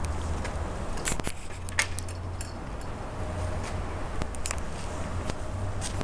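Footsteps and handling noise from a camera carried on foot: scattered sharp clicks and scuffs over a low steady rumble.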